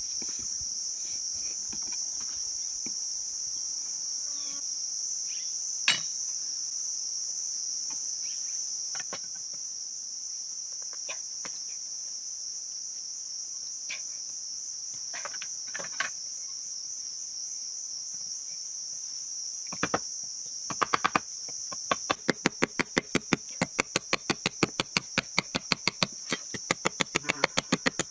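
Steady high-pitched insect chorus, with a few single knocks. Near the end, a rapid run of sharp machete chops into a green bamboo tube, about five a second.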